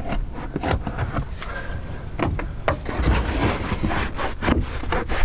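Hands pressing and smoothing a sheet of EVA foam decking down onto a boat floor: irregular light taps and rubbing, over a low rumble of wind on the microphone.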